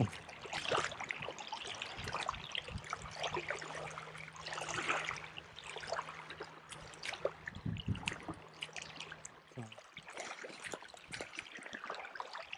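Small wind-driven waves lapping and trickling in shallow water, with many small irregular splashes and ticks.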